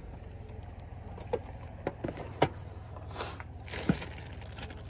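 Yard-sale items being handled on a table: a few short knocks and clacks, and a brief plastic-bag rustle a little past three seconds in as a zip-top bag of toy figures is picked up, over a steady low rumble.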